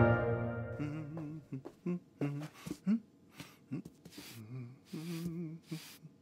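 Cartoon title music on bowed strings fading out, then a pet brush swishing through a kitten's fur in several short strokes, between soft hummed voice sounds that waver in pitch.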